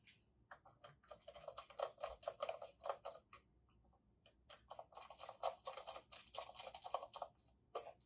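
Small screwdriver working the screws of a control board's screw terminal blocks: two runs of quick, faint clicks, each a few seconds long.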